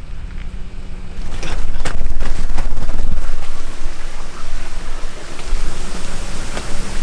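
Wind buffeting the microphone: a loud low rumble that grows stronger about a second in, with a few sharp clicks.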